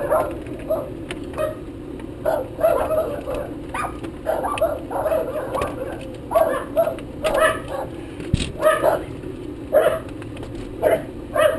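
Eskimo dogs barking over and over, short yapping barks about once or twice a second, at someone unlocking the door.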